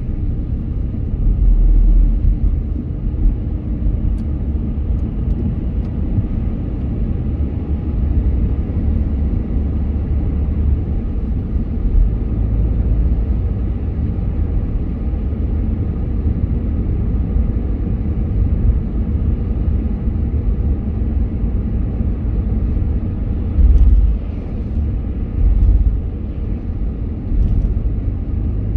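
Car driving in city traffic: a steady low rumble of engine and tyre road noise, with a few brief louder low surges near the end.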